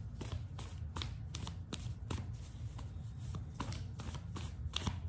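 A deck of reading cards being shuffled by hand: a quick, irregular run of soft card flicks and slaps.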